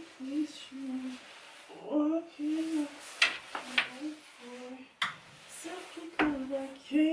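A woman humming a tune in long held notes. In the second half there are a few sharp clicks and knocks from the wardrobe she is rummaging in.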